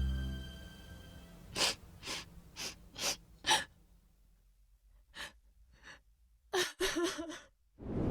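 A person's quick gasping breaths, five in about two seconds, then a short voiced gasp near the end, as the background music fades away.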